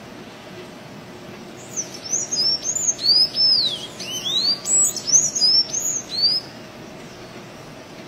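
A sanhaço-azul (blue Thraupis tanager) singing a rapid string of high, squeaky, slurred notes, each rising and falling in pitch. The song starts about two seconds in and stops a little after six seconds, over a steady background hiss.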